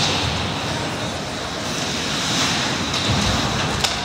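Ice hockey game ambience in a rink: a steady wash of skate blades scraping and carving the ice, with a sharp click near the end.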